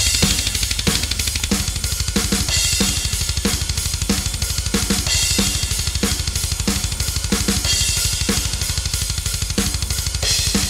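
Playback of a programmed drum part from a software drum sampler: kick, snare and cymbals in a steady beat, over a dense, continuous low backing.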